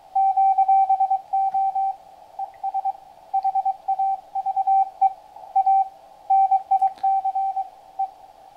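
Morse code (CW) received on the 40 m band by a QRP-Labs QCX-Mini transceiver and played through a small loudspeaker: a single steady beep keyed in quick dots and dashes over faint band hiss, spelling out 'TNX FER … HAVE A NICE DAY'. The signal rises and falls in strength with QSB fading.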